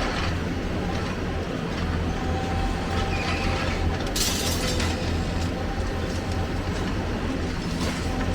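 Heavy diesel machinery, most likely an excavator, running steadily with a deep engine drone. There is a short burst of hiss a little past halfway.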